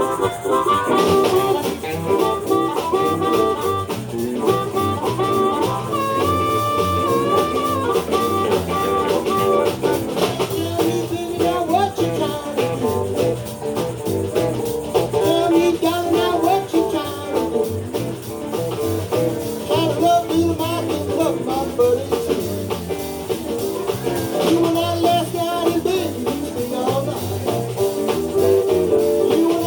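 Live blues band playing, with a lead instrument holding long, slightly bent notes over the band in the first third.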